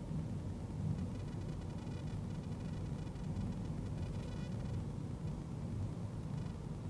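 Steady low rumble of a car's engine and tyres on the road, heard inside the cabin as it drives through a roundabout.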